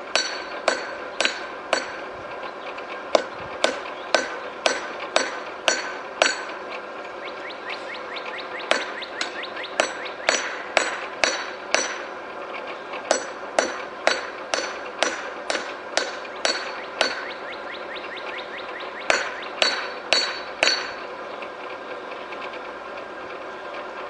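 Hand hammer striking hot steel held on an anvil, about two blows a second in runs with short pauses between, each blow ringing. This is the drawing out of a high-carbon steel bar. The blows stop a few seconds before the end.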